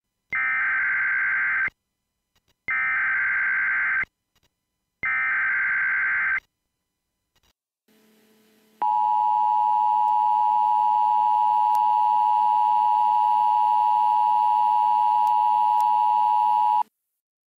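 Emergency Alert System tones: three short bursts of SAME header data tones about a second and a half each, then the steady two-tone EAS attention signal held for about eight seconds before it cuts off.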